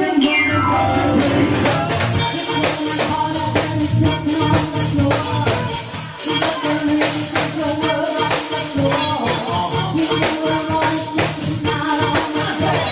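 Live band playing upbeat dance music: electronic keyboard over a drum kit, with a steady, quick percussion beat.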